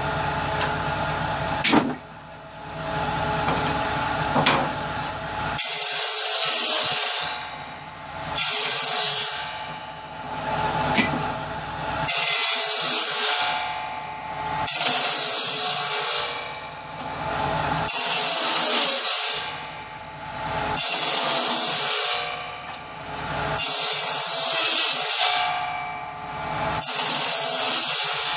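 Power saw running steadily, then cutting kindling wood again and again: eight loud hissing cuts of about a second each, roughly every three seconds from about five seconds in.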